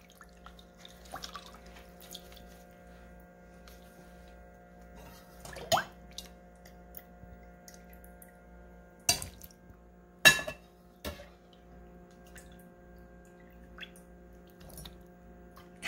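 Cold water splashing and dripping as steamed rice cakes are rinsed in a glass bowl and scooped out with a metal slotted ladle, with scattered small ticks and a few sharp clinks, the loudest about ten seconds in. A faint steady hum runs underneath.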